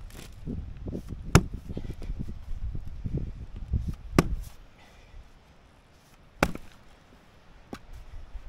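Long-handled axe chopping into a large timber round: three sharp wooden blows a few seconds apart, the first the loudest, and a lighter knock near the end, with rustling and footsteps in the debris between them.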